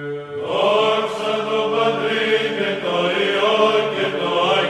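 Orthodox choral chant: voices singing a slow melody over a steady held drone.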